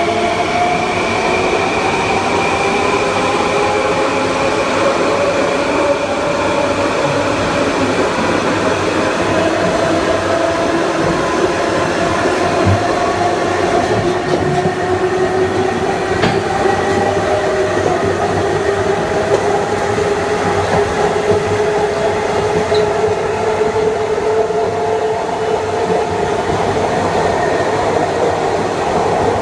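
Kawasaki M9 electric multiple unit's Mitsubishi IGBT-VVVF inverter and AC traction motors whining, several tones climbing slowly and steadily in pitch, over continuous wheel and rail noise.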